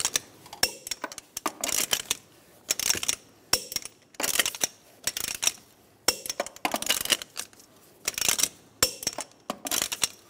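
Torque wrench tightening wheel lug nuts to 100 foot-pounds: short bursts of sharp metallic ratchet clicks about every second, as the wrench is worked from nut to nut.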